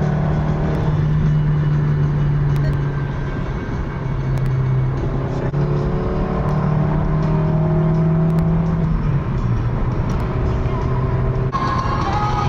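Nissan Silvia S14 Q's 2.0-litre SR20DE four-cylinder engine running under way, with road noise. The engine note rises as the car accelerates and drops back about nine seconds in.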